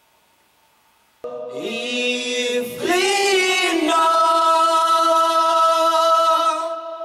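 Several voices singing long held notes together. They start suddenly about a second in, slide in pitch partway through, and ease off near the end.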